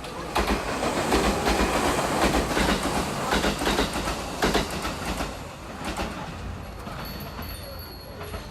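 Train running on rails, rattling with irregular clicks, loudest over the first five seconds and then dying down.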